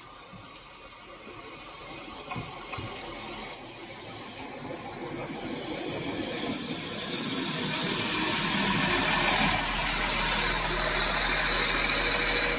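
PESA SA135 diesel railbus arriving, its engine and running noise growing steadily louder as it draws up alongside the platform.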